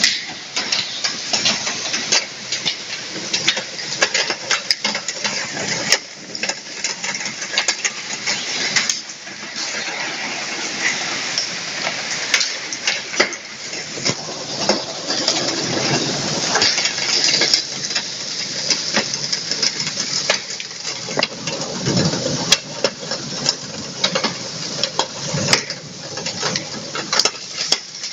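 Heavy rain mixed with hail: a steady hiss of downpour with many sharp clicks of hailstones striking hard surfaces.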